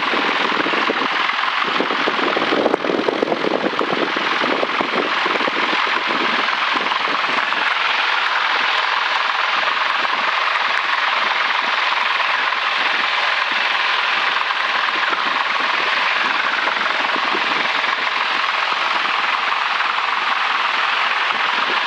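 Single-engine Grumman light airplane's piston engine and propeller running at taxi power, heard from inside the cockpit as a steady, noisy drone. Scattered crackles come through in the first few seconds.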